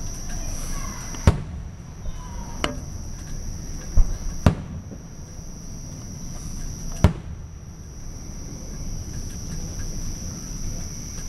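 Aerial firework shells bursting: five sharp bangs at uneven intervals, the first four within about three seconds and the last near the middle. A steady high-pitched insect trill runs underneath.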